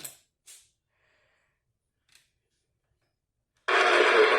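A few faint clicks, then near silence. About three and a half seconds in, loud, noisy radio audio cuts in abruptly.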